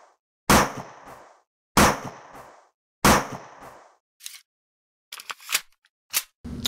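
Three gunshot sound effects about 1.3 seconds apart, each a sharp bang with a ringing tail, followed by a few faint clicks near the end.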